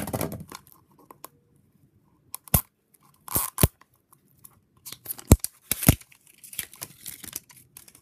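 Mash'ems toy packaging being torn and crinkled open by hand, with irregular rustling bursts and several sharp clicks and snaps.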